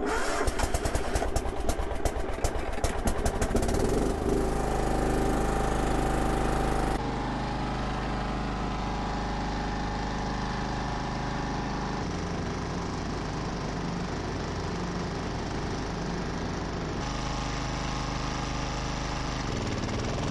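Kawasaki 14 hp air-cooled, aluminum-block engine of a John Deere LX176 garden tractor, running on its first test run after a crack in its crankcase was sealed with J-B Weld epoxy. It fires unevenly for the first few seconds, then runs steadily.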